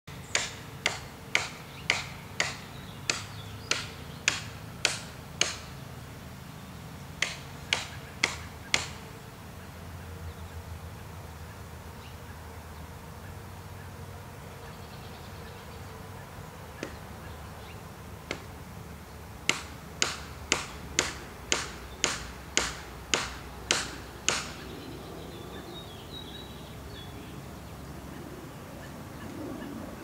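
Sharp blows against the base of a tree being felled, about two a second, in three runs: about ten, then a short run of four, then about ten more.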